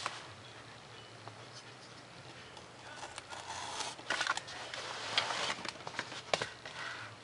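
Hobby knife cutting through 3 mm Depron foam sheet along a plastic ruler: scratchy scraping strokes with several sharp clicks, starting about three seconds in.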